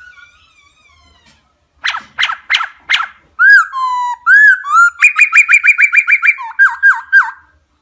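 Laughingthrush singing a loud, clear whistled song: a few quick, sharp down-slurred notes, then arched whistles, a fast run of about ten repeated notes and a few dipping notes before it stops near the end.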